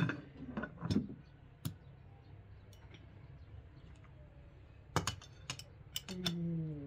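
Metal clicks and clinks of a steel pressure cooker's lid being fitted and locked onto the pot. There are a few sharp clicks at first, a quiet pause, then a quick run of clicks about five seconds in. A brief voice follows near the end.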